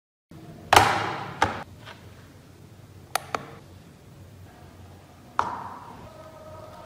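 Knocks and taps of hard objects being handled: a loud knock with a short ringing tail, a second knock just after, and a quick double click. Near the end comes another knock as a plastic cup is set down on a digital kitchen scale.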